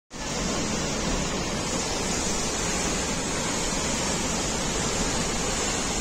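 Aharabal waterfall: a large volume of white water falling into a rocky gorge, giving a steady, loud rush of water.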